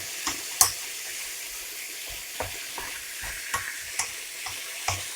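Chopped vegetables and turkey salami sweating in a frying pan: a steady high sizzle, broken by irregular clicks and scrapes of a utensil stirring against the pan.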